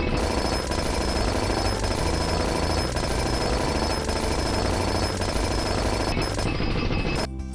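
A fast, dense mechanical rattle of rapid hammering, a cartoon construction-machine sound effect, over background music with steady tones. The rattle cuts off suddenly near the end.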